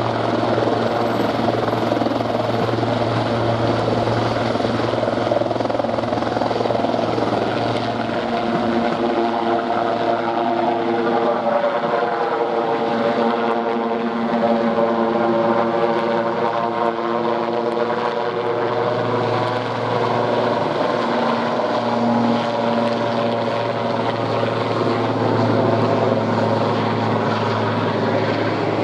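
Sikorsky S-76 twin-turbine helicopter lifting off from a hover and climbing away overhead, its main rotor and engines running loud and steady. A pitched hum comes through the roar from about eight seconds in.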